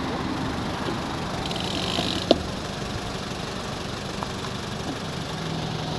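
Road traffic noise at a junction, with vehicle engines idling in the background. A single sharp click comes a little over two seconds in.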